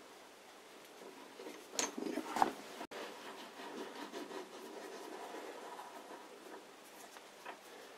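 Steel quill-lock screw and handle being turned down on their thread into a cast-iron lathe tailstock, with faint metal rubbing and scraping. A cluster of clicks and scrapes comes about two seconds in.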